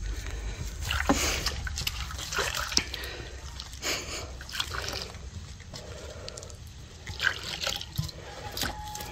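Water trickling and splashing in a gold-panning batea as it is worked, in short, irregular splashes.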